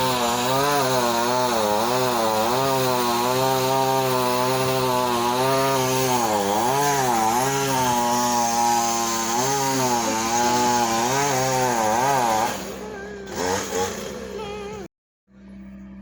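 Chainsaw running hard while cutting wood, its pitch dipping and recovering again and again as it is loaded. About twelve seconds in it falls away to a quieter sound with a couple of brief rises, then cuts out.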